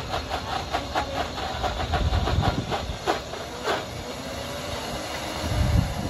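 1500-watt countertop blender running on its regular setting, blending fresh corn kernels with liquid: a steady motor whir with rapid knocking of pieces against the jar, about five a second, that fades over the first four seconds as the corn breaks down.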